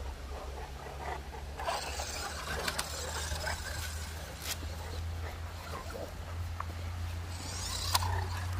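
Dogue de Bordeaux dogs snuffling and breathing heavily at close range, in noisy bursts about two seconds in and again near the end, with a few sharp clicks. A low steady hum runs underneath.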